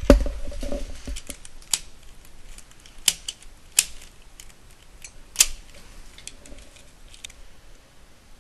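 Hard plastic clicks from a DaYan Guhong 3x3 speedcube being handled as it is put together: one loud snap at the start, then a handful of sharp, scattered clicks that grow fainter towards the end.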